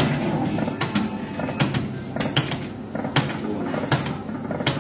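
Electronic slot machine sounds in a gaming hall: the EGT 40 Burning Hot game's spin-and-stop electronic tones, with several sharp clicks at uneven intervals over a steady bed of machine music.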